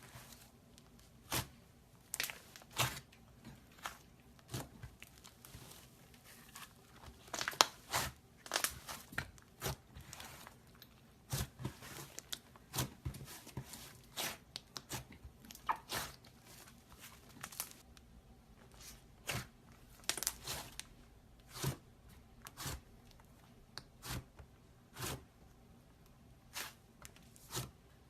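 Slime being squished and pressed by hand, giving short sharp pops and crackles at irregular intervals, about one or two a second, bunching up a quarter of the way in and again about two-thirds through.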